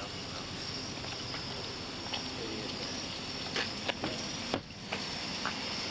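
Steady high-pitched chorus of night insects such as crickets, with a few sharp clicks and a knock between about three and a half and four and a half seconds in, then a brief dip in the sound.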